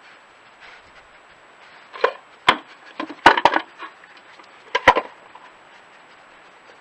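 Wooden peanut feeder box, a converted squirrel feeder, being knocked about on patio paving slabs by a badger: sharp wooden clattering in bursts about two seconds in, a cluster of knocks around three and a half seconds, and another burst near five seconds.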